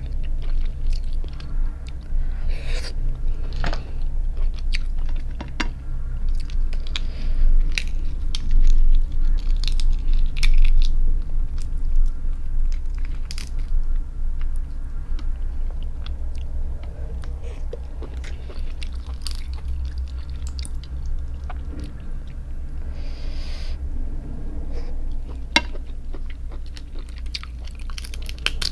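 Close-miked chewing and crunching on cooked crab, with many short clicks and crackles as pieces of crab shell are picked apart by hand. A steady low hum runs underneath.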